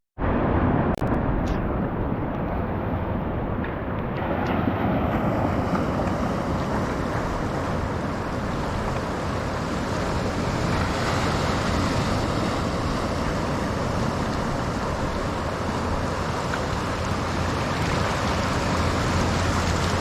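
Steady wind on the microphone over surf washing against a rock jetty.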